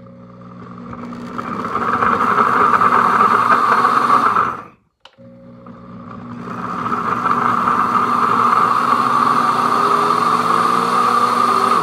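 Pampered Chef Deluxe Cooking Blender motor pulsing thick soup, spinning up over a couple of seconds each time. It cuts out briefly about five seconds in, then runs again.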